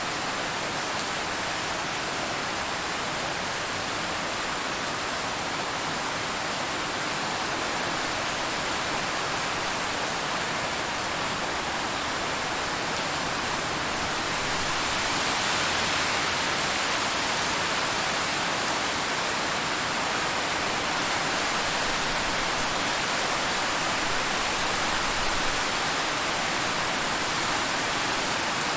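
Steady rain falling on a car, heard from inside the car, growing slightly heavier about halfway through.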